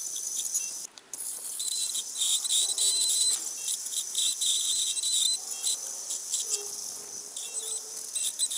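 Ultrasonic dental scaler working over a dog's teeth to strip off plaque: a high-pitched buzzing hiss that wavers as the tip moves, cutting out briefly about a second in.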